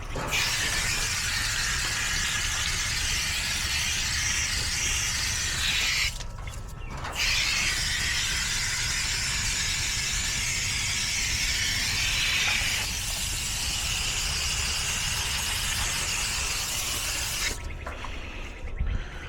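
Garden hose spray nozzle hissing as it rinses a dirty AC condenser coil, in two long sprays with a brief stop about six seconds in; the spray shuts off near the end.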